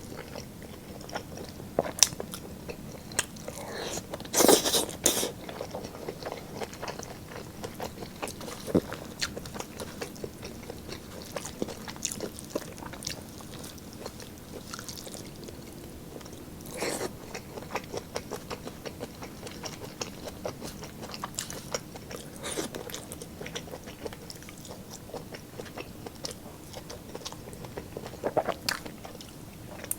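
Close-miked mukbang eating sounds: chewing and crunching of roasted lechon pork ribs and chicken, with many small wet clicks and a few louder crunches, the loudest about four seconds in.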